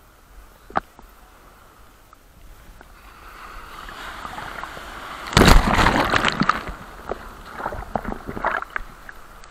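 Ocean wave breaking: the rush of water builds for a couple of seconds, crashes loudly about five and a half seconds in, then washes out in a hiss with many small clicks.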